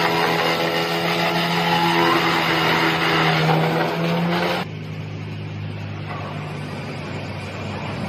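Four-blade wood chipper running under load as it chips a log: a dense grinding, chopping noise over the steady hum of its engine. About two-thirds of the way through the sound drops suddenly to a quieter, steady engine hum.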